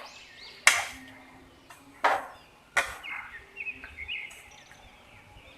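Three sharp clinks of utensils against cookware, under a second in, just after two seconds and near three seconds, with small birds chirping faintly in the background.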